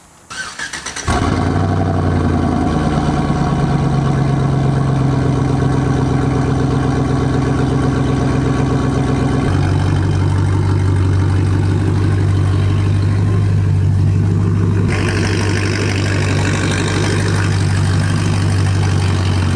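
Chevy Silverado 'cateye' pickup engine cranking briefly and catching about a second in: a cold first start of the day. It then runs steadily, the engine note drops lower about nine seconds in, and more hiss comes in near the end as the truck pulls away.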